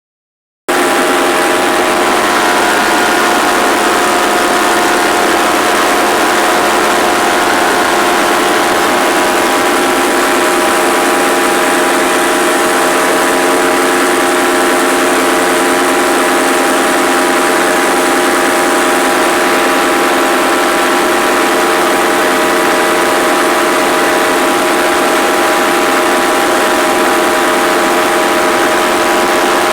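Paramotor's two-stroke engine and propeller running at a steady, unchanging speed in flight, over a constant rush of air noise. It cuts in just under a second in.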